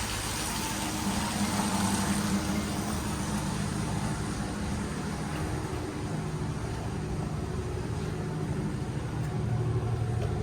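An engine running steadily at idle: a constant low hum with an even hiss over it.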